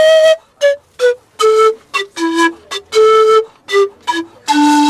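Andean bamboo panpipe played solo: a melody of short, breathy notes with gaps between them, stepping down in pitch twice and ending on a longer low note.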